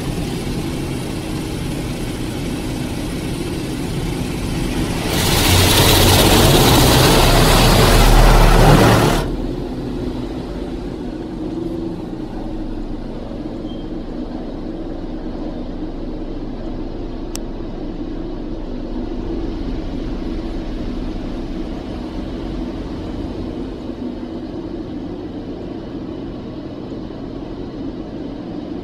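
Automatic car wash heard from inside the car: a steady hum of wash machinery and running water, broken by a loud hissing spray of water on the car body from about five seconds in that stops suddenly some four seconds later.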